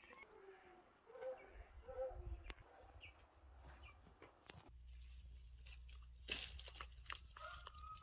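Faint short calls of farmyard poultry, then footsteps crunching and rustling through dry straw.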